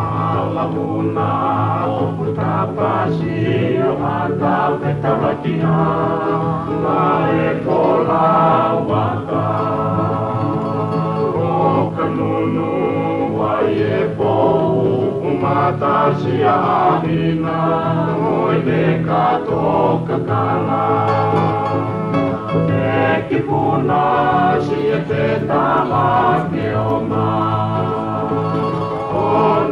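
Background music: a song with choir-like singing over a steady low accompaniment.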